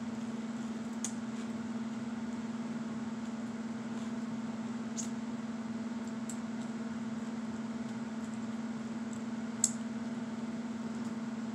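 A steady low hum under faint mouth clicks from someone chewing crunchy toast, with one sharper click near the end.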